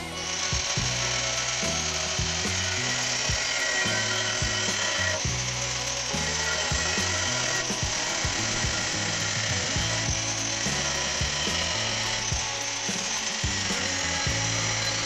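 Angle grinder with an abrasive disc cutting into the steel shell of an old air-compressor tank, a steady grinding hiss that starts suddenly at the outset. Background music with a bass line plays underneath.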